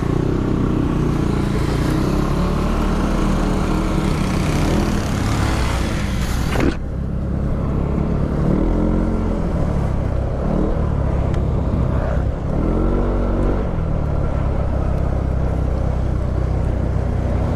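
Yamaha Aerox 155 scooter's single-cylinder engine running under way, with heavy wind noise on the mic for the first several seconds that drops away abruptly about seven seconds in. Twice the engine pitch rises and falls again as the throttle is opened and eased.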